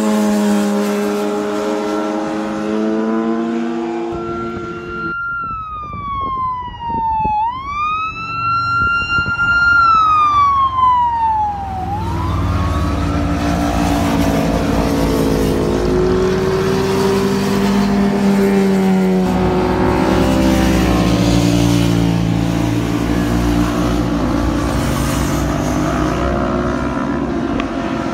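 Motorcycles riding past one after another, their engines rising and falling in pitch as each goes by, over a deep rumble. Between about 5 and 12 seconds a single high whining tone sweeps down, back up, holds and falls away.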